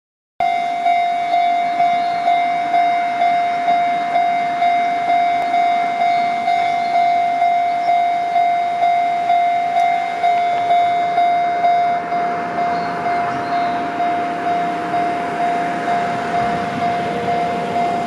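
Japanese railway level-crossing warning bell ringing its repeated single-pitched 'kan-kan' at about two strikes a second while the crossing's barrier arms come down for an approaching train. The strikes get slightly less sharp after about twelve seconds.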